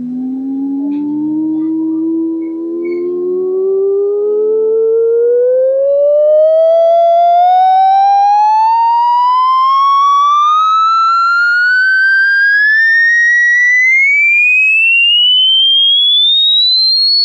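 Hearing-test frequency sweep: a single loud, steady pure tone rising smoothly and continuously in pitch, from a low hum to a high whistle.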